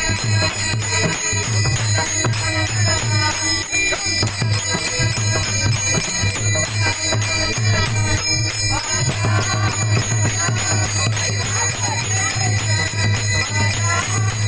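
Marathi kirtan music: small hand cymbals jingling in a steady, even rhythm over a steady low drone, with a melodic line bending up and down in the middle range.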